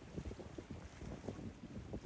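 Wind buffeting the microphone: an uneven low rumble that rises and falls with the gusts.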